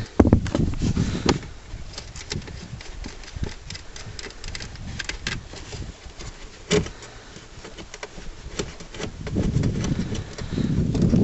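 10mm socket wrench undoing the nuts that hold a car's tail light unit: irregular metallic clicks and clatter, with a louder knock partway through and a rustle of handling building near the end.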